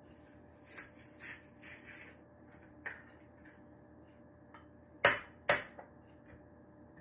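Onion-cutting and kitchen handling sounds at a cutting board: a few soft scrapes and a click, then two sharp knocks about half a second apart, the loudest sounds, about five seconds in.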